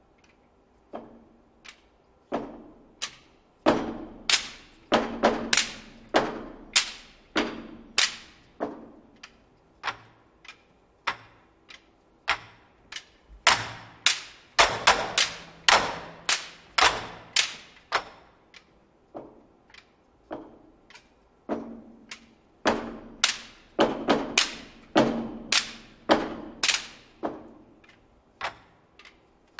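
Chinese barrel drums struck with sticks by an ensemble in sharp single hits, loud and soft strokes in an irregular pattern with short pauses between groups, each hit dying away quickly.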